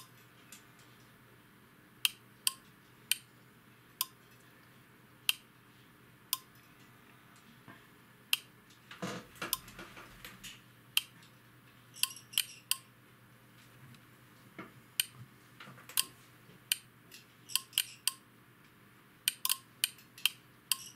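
Relays in a Teplocom ST-400 voltage stabilizer clicking irregularly, sometimes several in quick succession, as the unit switches its transformer taps. A short rustle comes about nine seconds in.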